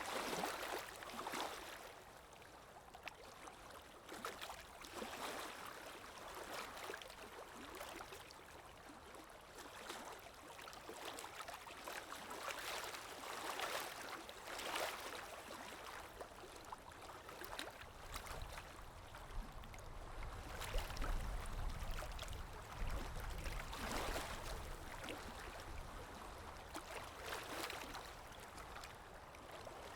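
Calm waves lapping and washing in, the water noise swelling and easing every few seconds. A low rumble joins in about two-thirds of the way through.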